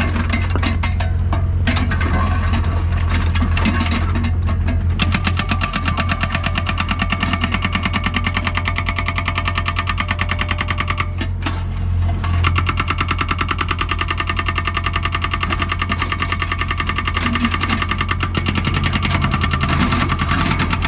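Diesel engine of a Doosan DX55WA wheeled excavator running steadily, a low drone with a rapid, even firing beat.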